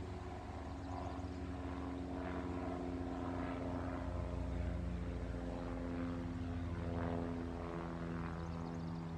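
Cessna 172 Skyhawk single-engine propeller plane flying overhead: a steady, low drone of piston engine and propeller.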